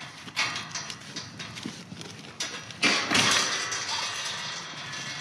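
Metal livestock-panel gate rattling and clanking as it is unlatched and swung open, with a loud clatter about three seconds in, mixed with footsteps scuffing on dry dirt and leaves.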